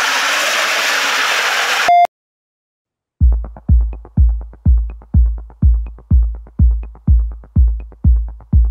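A steady, noisy roar for about two seconds, cut off by a short beep. After about a second of silence, electronic music starts with a heavy kick drum at about two beats a second.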